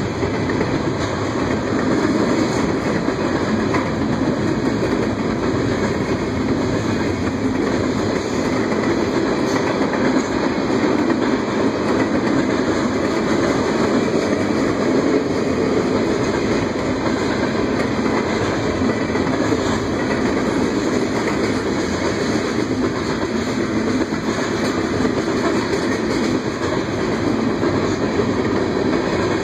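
Freight cars rolling past at speed: the steady rumble of steel wheels on the rails, with clickety-clack over the rail joints.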